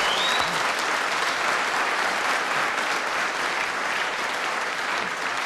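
Studio audience applauding, a steady dense clapping that eases off a little near the end.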